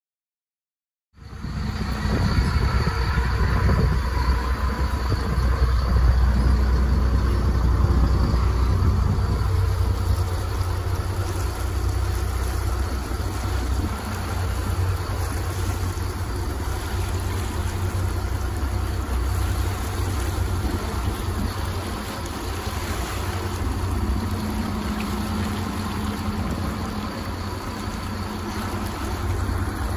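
A fishing boat's engine running steadily with a low rumble, under a wash of wind and water noise. The sound cuts in about a second in.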